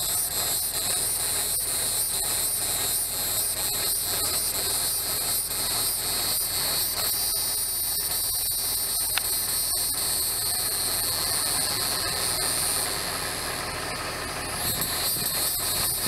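Shrill, steady insect buzzing, like a cicada chorus in the trees, with a fast pulsing texture; it dips briefly near the end and then comes back.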